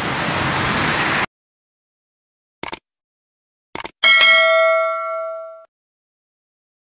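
Subscribe-button animation sound effects: two short clicks, then a notification-bell ding about four seconds in that rings out and fades over about a second and a half. Before them a steady hiss stops abruptly.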